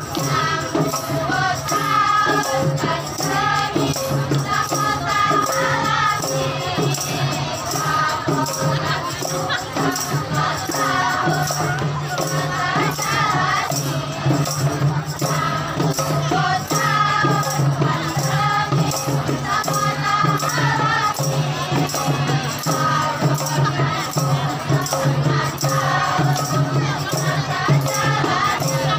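A group of female voices singing a nasyid together in the Simeulue language, accompanied by rebana frame drums beaten in a steady rhythm.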